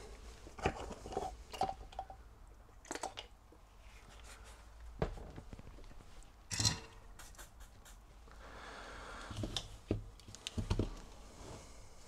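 Scattered knocks, taps and light scrapes of tools being handled on a wooden workbench as a soldering iron and a reel of solder are got ready, with a soft hiss about two-thirds of the way in.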